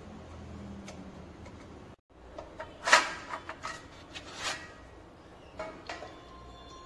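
Sheet-metal cover of a DVR recorder being slid off and handled: a run of metallic clatters and knocks. The loudest comes about three seconds in, with more near the middle and toward the end.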